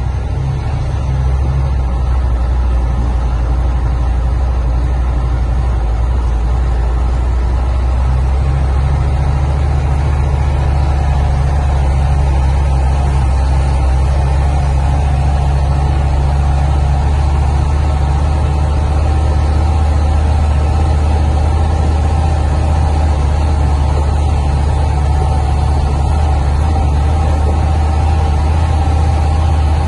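Vehicle driving slowly on a gravel road, heard from inside the cabin: a steady, loud low engine drone with tyre and road noise.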